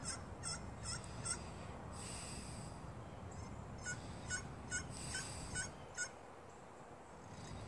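Pocket slate friction turkey call worked with a striker, making a series of short, high, raspy hen-turkey yelps. There are about four notes at the start, then a run of six about four seconds in.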